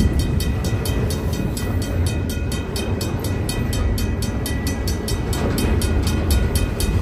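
Double-stack intermodal container cars rolling past, with a steady low rumble of steel wheels on rail. Over it runs a fast, even ringing from the level crossing's mechanical bell.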